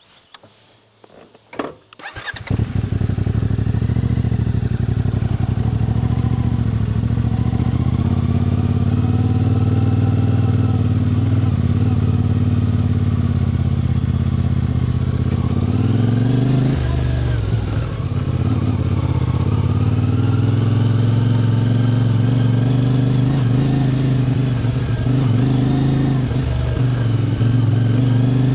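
A few clicks, then an engine starts about two seconds in and runs steadily, its note dipping and rising once around the middle.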